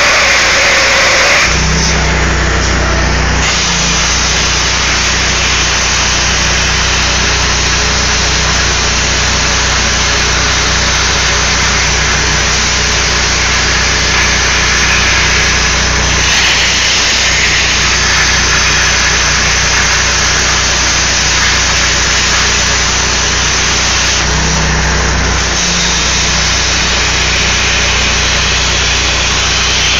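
Everlast Power Plasma 60C plasma torch on a CNC table cutting steel plate: a loud, steady hissing rush of the arc with a low hum beneath. The sound shifts briefly about two seconds in, around halfway, and near the end.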